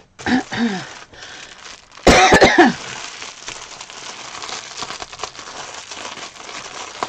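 A woman coughs once, loudly, about two seconds in, then a steady light crinkling of cellophane wrapping as the wrapped bags of diamond-painting drills are handled.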